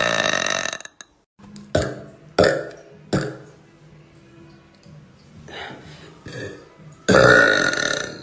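A woman burping loudly. One long burp trails off about a second in, a few short sounds follow, and another long, loud burp starts near the end.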